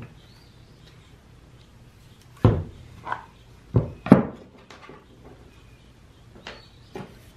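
Several short knocks and clunks as the plastic housing of a partly dismantled Jon Cutter G5800 chainsaw is turned over and set down on a wooden workbench, the loudest few in the middle.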